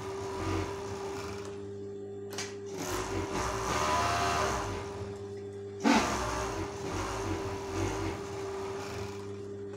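Industrial overlock machine (serger) stitching and trimming the edge of heavy tapestry fabric in short runs, its motor humming steadily throughout. A sharp click about six seconds in.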